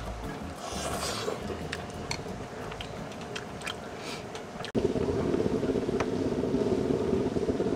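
Eating sounds: chewing with a few light clicks of utensils. About two-thirds of the way through, a louder, steady rumbling hiss starts suddenly.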